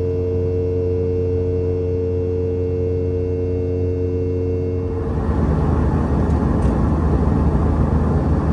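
A steady hum of several held tones for about five seconds, then an abrupt change to the Boeing 717's in-flight cabin noise, a louder, even rushing roar.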